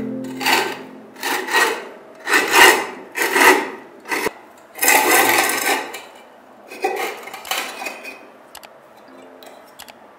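A rusted tin oil lamp being turned and handled by gloved hands, its rust-crusted metal scraping and grating in a series of short rasps with one longer scrape near the middle. The scrapes fade to a few small clicks near the end.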